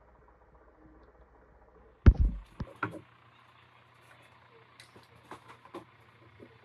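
Handling knocks at a desk: a heavy thump about two seconds in, then a few sharper knocks, followed by scattered light taps and clicks.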